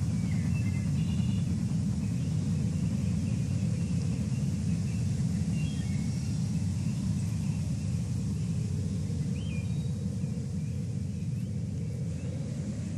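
Steady low outdoor rumble with a few faint, short high chirps now and then.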